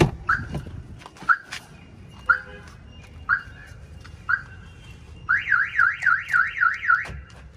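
A thump at the start. Then a car alarm sounds: five short chirps about a second apart, then a fast warbling siren for about two seconds that cuts off.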